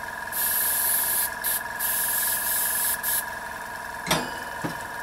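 Paint being sprayed onto a rifle stock in several short hissing bursts over about three seconds, over a steady tone, followed by a single knock about four seconds in.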